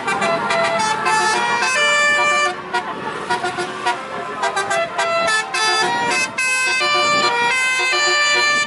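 Telolet horns on cars playing quick melodic runs of multi-tone notes, several tones sounding together, some notes held briefly between the rapid ones.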